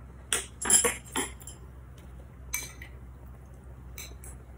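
Metal chopsticks clinking against a small glass bowl: a quick run of three or four clinks in the first second and a half, another about halfway, and two more near the end.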